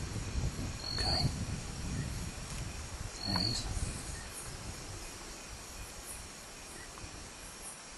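Night insect chorus: a steady faint high-pitched trill, with two short, sharp high chirps in the first half. A low rumble of movement near the microphone fades away through the second half.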